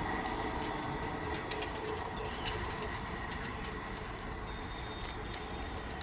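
Goods train rolling past and fading away: a steady rail rumble slowly dying down, with a few faint clicks.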